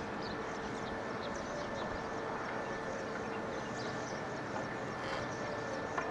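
Steady hum of distant road traffic, with faint short bird chirps scattered through it.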